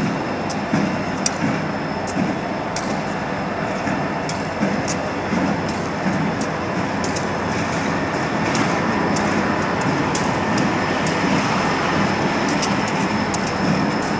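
Union Pacific EMD SD40-2 and SD40N diesel locomotives, with a slug between them, rolling slowly past. Their engines make a steady rumble, with scattered sharp clicks throughout.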